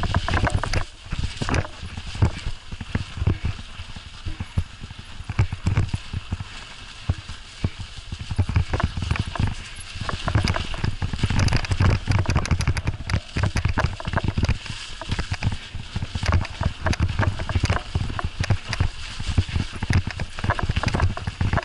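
Bicycle ridden along a snowy forest trail: a dense, irregular run of clattering knocks and rattles as the bike jolts over bumps, over a steady low rumble.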